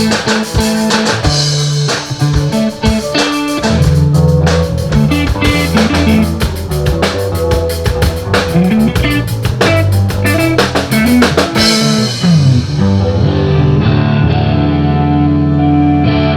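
Rock band playing electric guitar, bass and drum kit, with sharp drum hits over a chord progression. After about twelve seconds the drums and bright top drop out, leaving sustained low chords.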